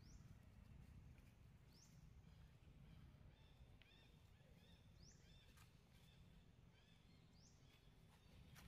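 Near silence: faint outdoor ambience with a low rumble, with four short, high, upward-sweeping chirps spaced a second or more apart and a few softer lower chirps in the middle.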